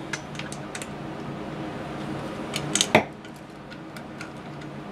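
Hands handling small brass fittings and plastic tubing: scattered light clicks and taps, with a sharper click about three seconds in, over a steady low hum.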